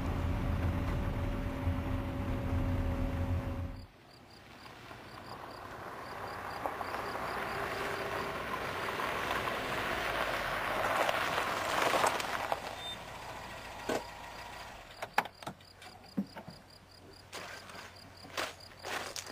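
Steady engine and road hum inside a moving car, cutting off about four seconds in. A car is then heard driving up, growing louder to a peak about twelve seconds in and fading as it comes to a stop. A run of knocks and clicks follows as a car door is opened and handled, over a regular chirping of insects.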